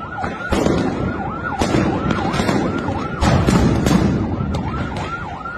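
A siren yelping quickly, its pitch swinging up and down about twice a second, over a loud din, with several sharp bangs.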